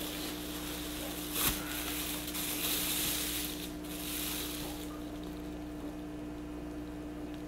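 Thin plastic shopping bag rustling and crinkling as it is pulled open by hand, with one sharp knock about a second and a half in. The rustling stops about five seconds in, leaving a steady low hum.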